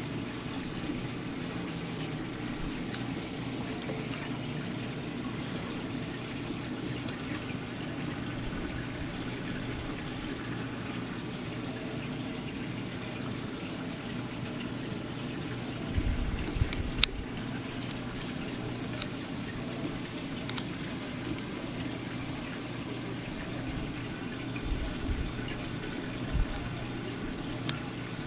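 Steady trickling and splashing of water from a reef aquarium's circulation, over a low steady hum. A few low thumps come about halfway through and again near the end.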